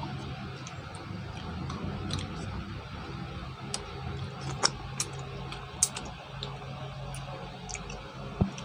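Mussel shells clicking against each other and against an aluminium pan as cooked mussels are picked out by hand and eaten, a handful of sharp separate clicks, the last one near the end.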